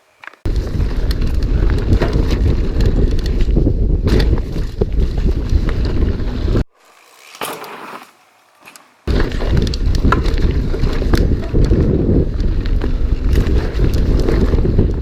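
Heavy wind rumble on the camera microphone with the rattle, clicks and knocks of a mountain bike ridden fast over rough trail. The noise cuts out suddenly about six and a half seconds in, stays low for about two and a half seconds, then comes back just as loud.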